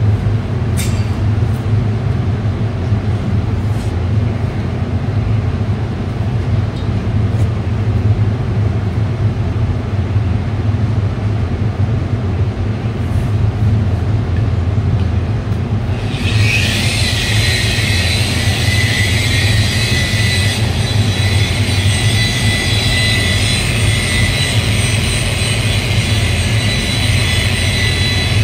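Electric car polisher (buffer) running on paintwork: a steady low hum, joined about halfway through by a high, steady whine.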